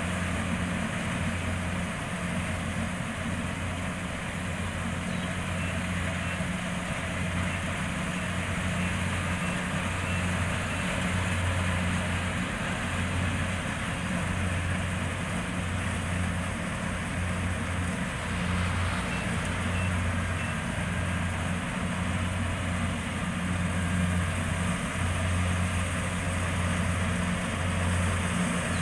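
Rice combine harvester running steadily, a low engine hum under a broad, noisy machine clatter.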